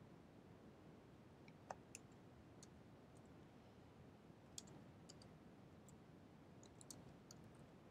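Faint, scattered clicks of computer keyboard keys, a handful of separate keystrokes over near-silent room tone.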